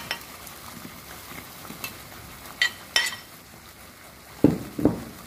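Sauce sizzling and bubbling in an aluminium wok as sliced green chillies are tipped in off a plate, with a few sharp clinks of utensil on crockery. Two dull knocks near the end are the loudest sounds.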